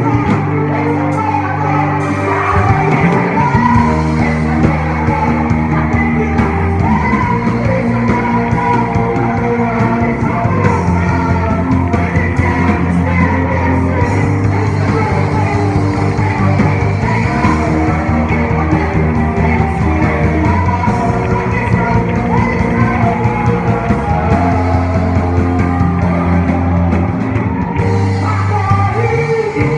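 A gospel praise band playing a worship song, with singing over the band.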